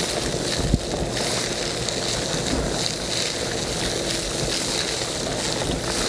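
Ridgid wet/dry shop vacuum running steadily, its hose wand sucking loose dirt out of the bottom of a post hole. A single sharp knock about three-quarters of a second in.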